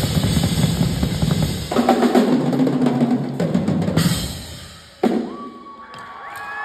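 Two acoustic drum kits played together in a duet, a dense, loud passage of kick, snare and cymbal strokes that changes pattern a couple of seconds in and then dies away about four to five seconds in. A single sharp hit comes just after that, and steady high tones begin near the end.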